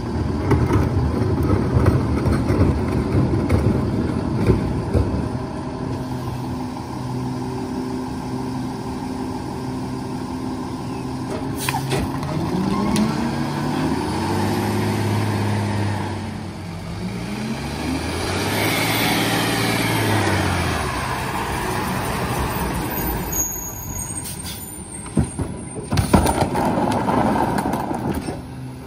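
Heil rear-loader garbage truck's diesel engine idling, then revving up and dropping back twice as the hydraulic packer runs its compaction cycle. A sharp air-brake hiss comes about twelve seconds in, and there are a few knocks near the end.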